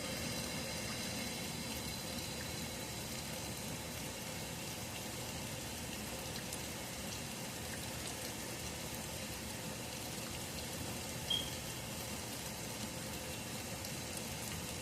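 Steady background hiss with no clear source, and one short high chirp about eleven seconds in.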